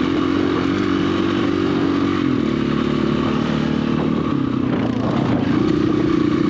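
Dirt bike engine running under throttle. Its pitch steps down about two seconds in, then dips and climbs again around five seconds.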